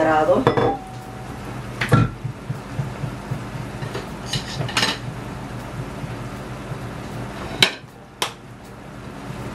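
Sliced mushrooms frying in a stainless steel sauté pan: a steady sizzle, with several sharp knocks of a wooden spoon and cookware, the loudest about two seconds in and near the end.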